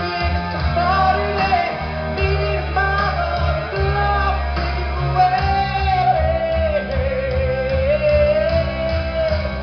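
Rock song with a lead singer over a band, with bass underneath. In the second half the singer holds one long note that dips and rises again.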